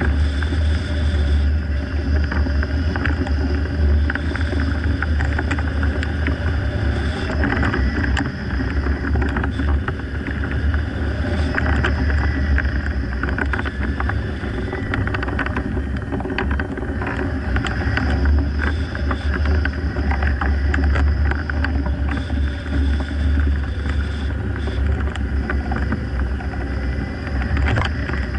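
Steady airflow rushing over the microphone of a hang glider in flight: a heavy, unbroken low wind rumble with a hiss above it and occasional light ticks.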